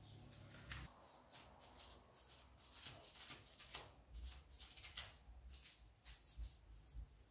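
Faint soft rustles of fingertips pressing furrows into raw pide dough on parchment paper, a light touch about once or twice a second.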